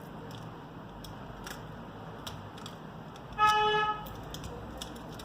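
A single short horn-like honk, about half a second long and much louder than everything else, over steady hiss and faint scattered small clicks.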